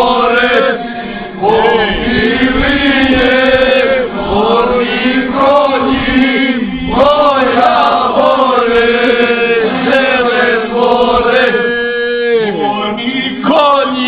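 A group of men singing together loudly in unison, in long drawn-out phrases with sliding pitch.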